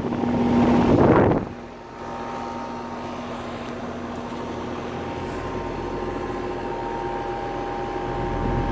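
2000 Trane XE1200 2.5-ton straight-cool condensing unit running: a steady hum with a couple of level tones, growing louder over the last few seconds. A loud rushing noise cuts off sharply about a second and a half in.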